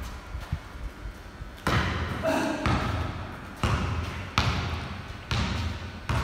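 Basketball being dribbled on a concrete floor, about five echoing bounces roughly a second apart, starting about a second and a half in.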